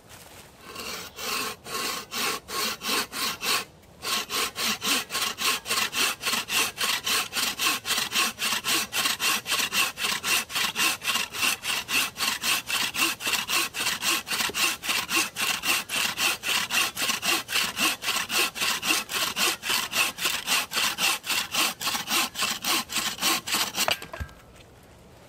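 Wooden-framed bow saw cutting through a green birch log, in a steady rhythm of about three strokes a second. There is a brief pause about four seconds in, and the sawing stops about a second before the end.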